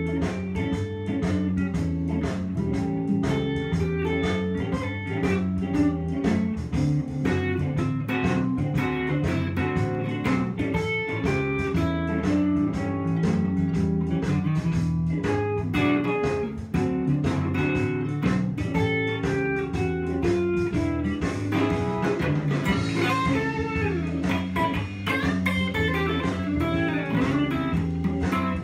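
Fender Stratocaster electric guitar playing blues lead lines, over a bass line and a steady beat.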